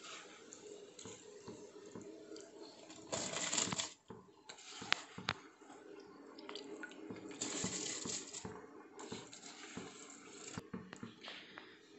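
Water with whole spices bubbling at a rolling boil in a steel pot. About three seconds in, soaked rice is tipped in with a brief rush and splash, and there are a few light clinks against the pot.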